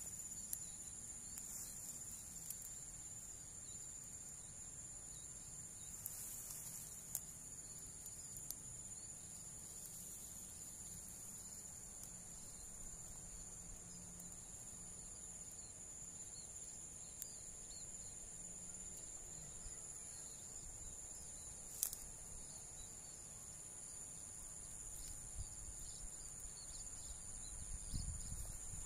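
Insects singing outdoors in a steady, high-pitched chorus, two unbroken shrill tones layered together. A few faint sharp clicks, the loudest about two-thirds of the way through, and a low thump near the end.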